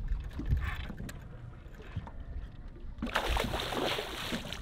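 Low rumble of wind and water around a small fishing boat, with a louder rushing hiss for about the last second and a half.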